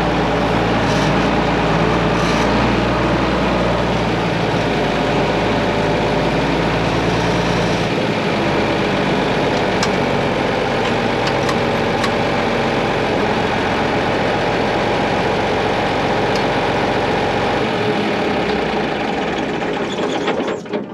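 A heavy farm machine's engine running steadily. Its low note drops a step about eight seconds in and again near the end, and the sound then cuts off.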